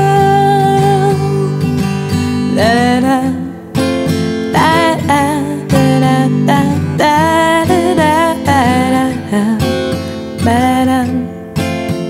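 Song with strummed acoustic guitar; a female voice holds the sung word "girl" about a second in, then a melody goes on over the strumming with no further words.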